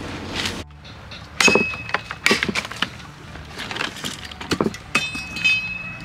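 Irregular sharp cracks and snaps of wood: peach-tree prunings being broken and chopped into pieces for mulch. A brief high steady tone sounds twice between them.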